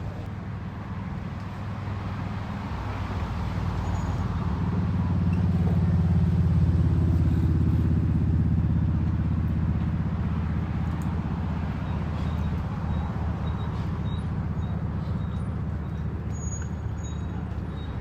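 Low engine rumble that builds over the first few seconds, is loudest around six to eight seconds in, then eases back to a steadier, quieter drone.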